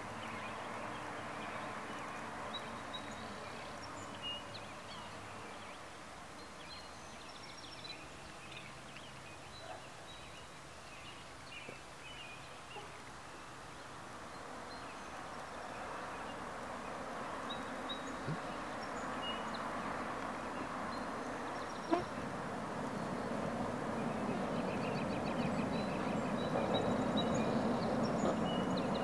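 Outdoor ambience: a steady background noise with scattered short bird chirps and calls. The background grows gradually louder toward the end, and a single sharp click stands out late on.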